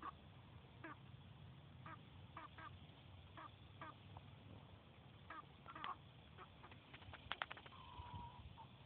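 Faint clucking of white roosters: short clucks every half second or so, a quick run of them about seven seconds in, then one longer drawn-out note near the end.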